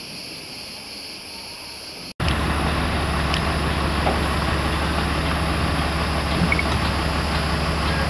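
A steady high hiss, then after a sudden cut about two seconds in, a heavy truck's diesel engine running steadily as a low hum, with the high hiss still above it.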